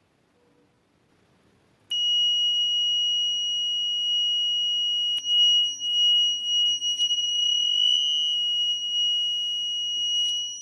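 Piezo buzzer of a homemade rain detector alarm sounding a continuous high-pitched tone, the alarm set off by water on the rain sensor. It starts suddenly about two seconds in, with a few faint clicks over it, and cuts off abruptly at the end.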